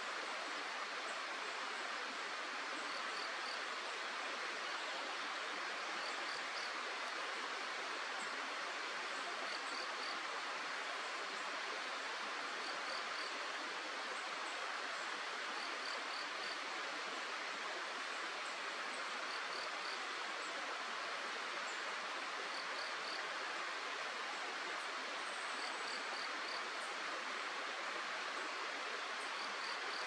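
Steady rush of flowing river water. Faint high chirps in twos and threes recur about every three seconds over it.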